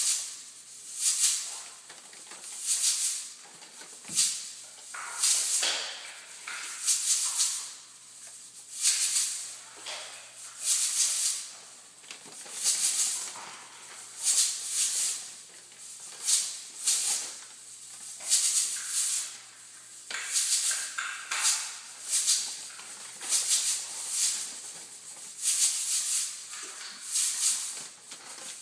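Clear plastic zip-top bag of cereal crinkling and rattling as a toddler's hands work in it, in repeated short bursts about once a second.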